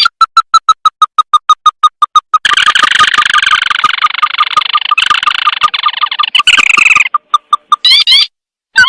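Crake lure call: quick, clear repeated notes, about six a second, that break about two and a half seconds in into a dense chattering trill. The trill stops about seven seconds in and gives way to a few spaced notes and short rising calls.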